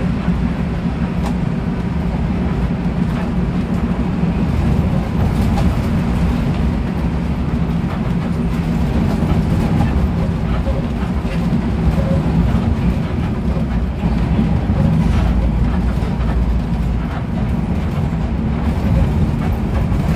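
Intercity bus cruising on the highway, heard from inside the cabin: a steady low rumble of engine and road noise, with a few faint clicks and rattles.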